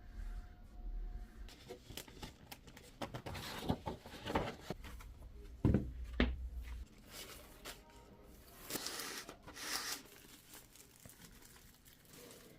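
Packaging of a vinyl LP being torn open and crinkled by hand: an irregular run of rustling, tearing and crackling with short clicks, busiest in the middle and again a little later.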